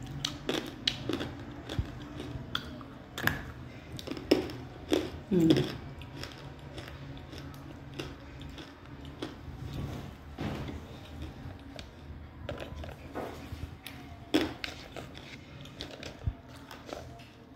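A person biting into and chewing dry edible clay, with repeated sharp crunches and crackles. A short sliding voice-like sound comes about five and a half seconds in.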